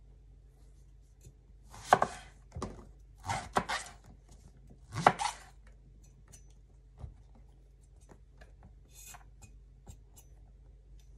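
Kitchen knife cutting the stem ends off long eggplants and striking a wooden cutting board: a cluster of about four sharp chops between about two and five seconds in, then a few softer cuts as the calyx is pared away.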